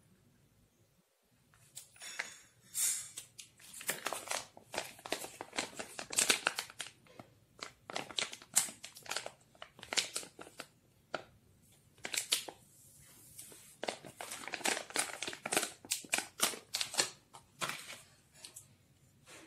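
Plastic packaging pouch holding a USB cable crinkling as it is handled, in a long run of sharp crackles with a few short pauses.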